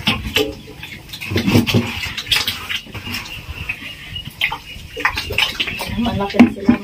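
Domestic sows eating feed: irregular chewing and smacking with occasional low grunts.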